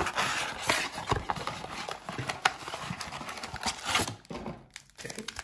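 Hands handling and opening a cardboard trading-card blaster box: irregular rustling with light clicks and taps, dying down near the end.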